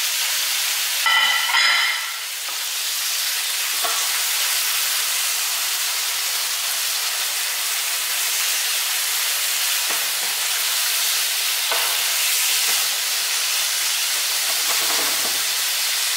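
Chicken and squid pieces sizzling in hot oil in a non-stick frying pan, stirred now and then with a plastic spatula. A short ringing clatter about a second in.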